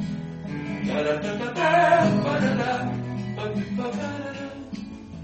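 Classical guitar strummed while a man sings along, the voice loudest about two seconds in.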